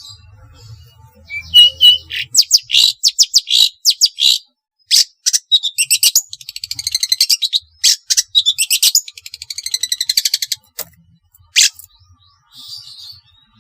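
Long-tailed shrike (cendet) singing: a couple of short clear notes, then long runs of fast, harsh chattering notes with a short break between them, ending with a single sharp note.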